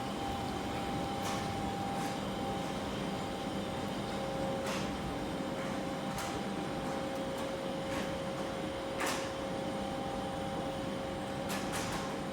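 Steady hum of a train standing at the platform, its ventilation and electrical equipment running, with two steady tones held throughout. A few faint clicks are scattered through it.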